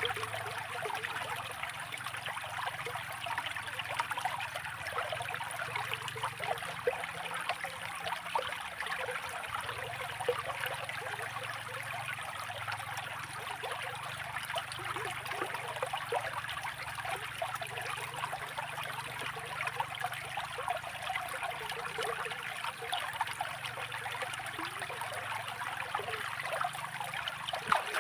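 Small stream of water trickling and babbling steadily over stones, with many small splashes and gurgles.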